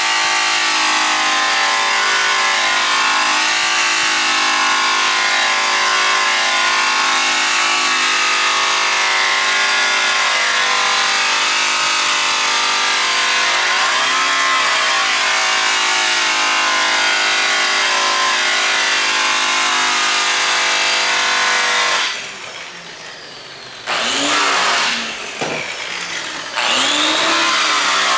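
A 6,000 rpm angle-grinder-style buffer with an orange buff and brown compound runs steadily against an aluminum driveshaft, its motor whine dipping briefly in pitch about halfway through. Near the end it cuts out, then starts up twice, the whine rising each time as it spins back up to speed.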